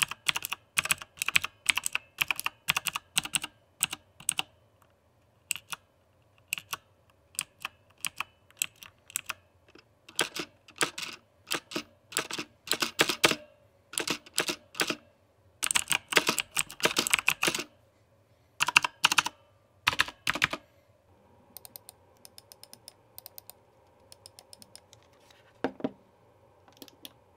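Onn mechanical keyboard with clicky blue switches being typed on in bursts of sharp clicks. After that comes a run of quieter, quicker ticks, and one last click near the end.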